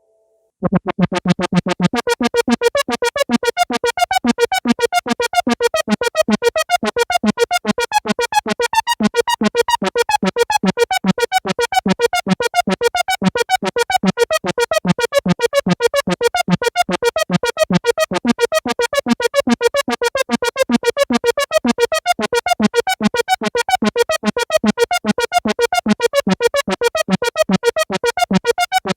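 Korg ARP 2600 FS analog synthesizer playing a fast, even run of short repeated notes whose pitch keeps shifting, like a sequenced or arpeggiated pattern. It starts abruptly about half a second in.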